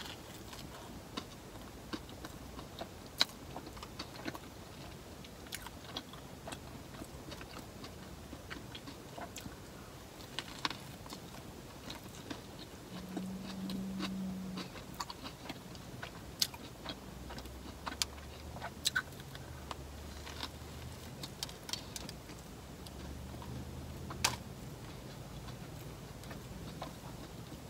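Close-up bite into a soft Subway sandwich followed by long chewing, with many small wet mouth clicks and smacks scattered throughout. A short low hum sounds about halfway through.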